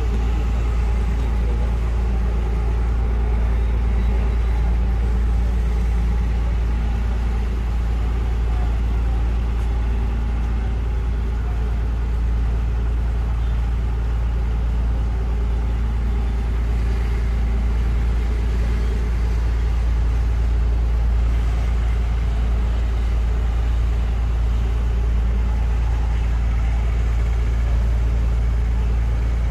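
Houseboat engine running steadily, a constant low hum with a few steady pitched tones over it.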